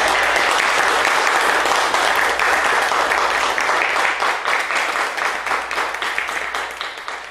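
Congregation applauding, a dense clapping that begins to thin out and fade over the last couple of seconds.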